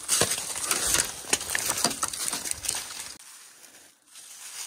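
Dry brush, leaves and twigs crackling and crunching as someone pushes through on foot, dying away about three seconds in.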